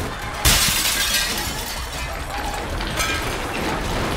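Glass-shattering sound effect: a sudden crash about half a second in, then a few seconds of tinkling, clattering debris, with another sharp clink about three seconds in.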